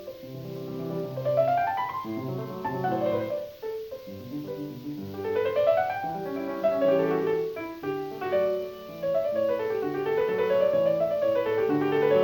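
Solo piano music in a classical style, playing flowing runs of notes that sweep up and down the keyboard.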